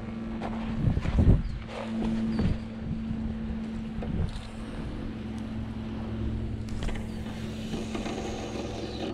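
A spinning rod being cast, with a few knocks and swishes of handling about a second in, over wind on the microphone and a steady low hum.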